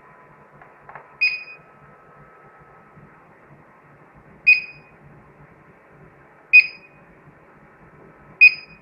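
Short electronic beeps from a security alarm system, four of them at uneven intervals, each brief and high-pitched.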